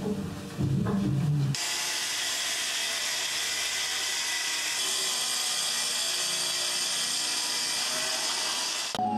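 Festool plunge-cut track saw cutting along an elm slab: a steady, even hiss of the blade in the wood. It starts about a second and a half in and cuts off abruptly just before the end, with background music before and after it.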